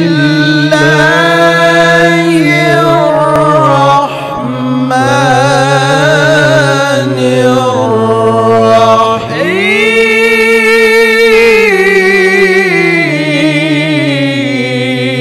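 A male Quran reciter chanting in the melodic tilawah style, in long, ornamented held notes. The voice breaks briefly about four and nine seconds in. After the second break it climbs to a higher held note, then falls back.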